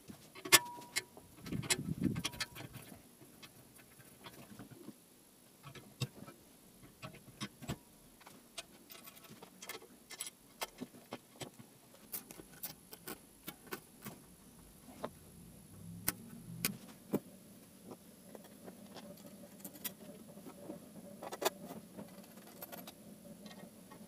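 Scattered light clicks and knocks of small metal parts and hand tools being handled while a refrigerator compressor is mounted on a steel frame, with a dull thump about two seconds in.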